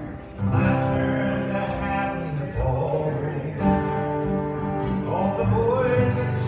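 A man singing into a microphone while playing an acoustic guitar, with held sung notes over the guitar. The sound briefly drops right at the start, then the song carries on.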